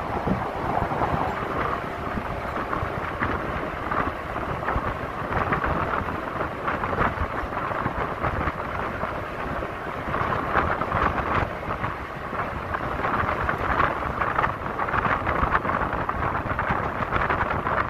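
Wind rushing and buffeting over a microphone in the open bed of a moving pickup, over a low road rumble from the truck driving at speed.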